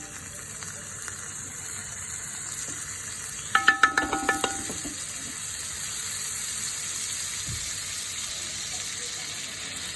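Bread sandwich frying on a hot tawa with a steady sizzle. About three and a half seconds in comes a quick cluster of ringing clinks, as of a utensil or plate knocking.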